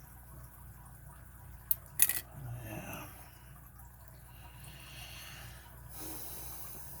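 Lock picking in an Abus 41/45 padlock: faint scraping of the pick and tension wrench in the keyway, with a sharp metallic click about two seconds in.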